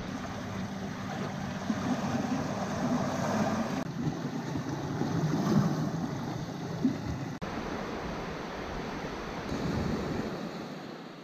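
Sea surf washing on the shore, with wind buffeting the microphone. The sound shifts abruptly about four and seven seconds in.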